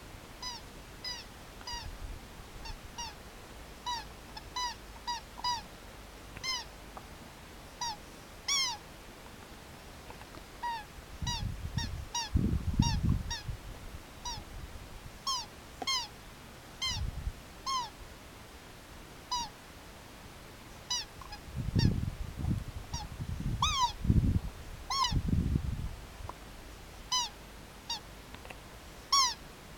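A dog chewing a squeaky rubber toy, making it give many short, high squeaks in irregular runs, often one or two a second. Twice there are stretches of dull low thumps from the dog handling the toy.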